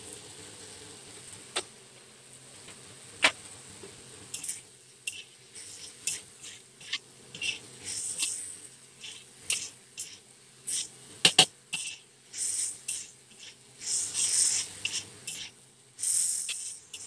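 Spatula scraping and knocking against a wok as diced chicken is stir-fried, with short spells of hissing sizzle. The sharpest knocks come about eleven seconds in.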